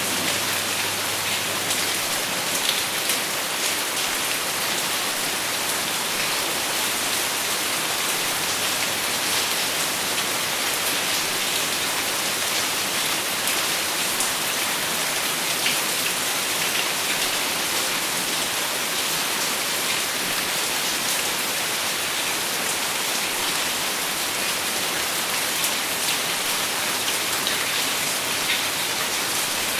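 Steady rain falling: an even hiss with scattered sharper taps of individual drops.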